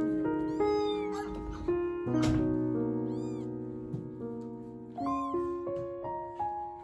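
Young tabby kittens mewing: a few short, high-pitched mews rising and falling in pitch, about a second in, about three seconds in and again about five seconds in, over background music of held notes.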